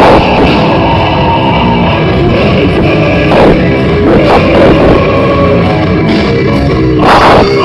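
Live djent metal band playing: distorted electric guitars and drum kit, recorded very loud with a harsh, overdriven sound.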